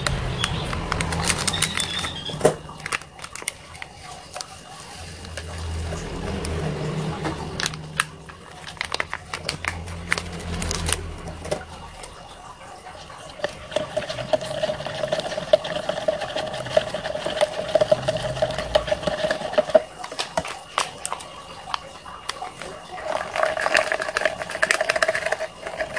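Spoon stirring in a paper cup of tea, with scattered light clicks and scrapes. A steady humming tone sets in about halfway through, breaks off, and comes back near the end.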